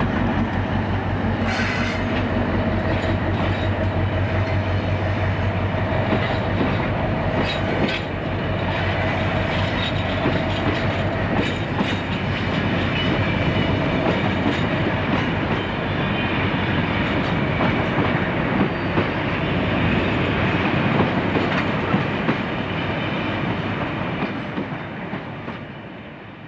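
British Rail Class 60 diesel locomotive passing close with its engine drone, followed by a long train of tank wagons rumbling and clattering over the rail joints. The noise dies away near the end.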